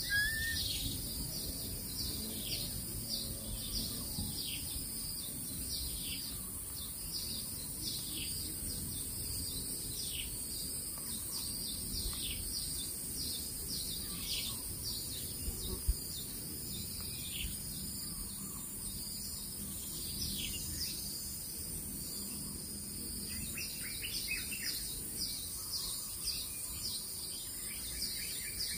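High, short bird chirps that slide downward in pitch, repeated a couple of times a second, over a steady high insect hum. A single brief click about halfway through.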